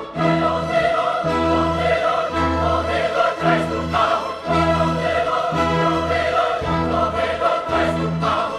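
Music with voices singing in chorus, sustained notes over a bass line that moves to a new note about once a second.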